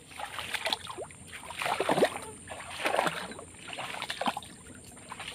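Water sloshing and splashing in a series of swishes about once a second, from someone moving through shallow swamp water; the loudest splash comes about two seconds in.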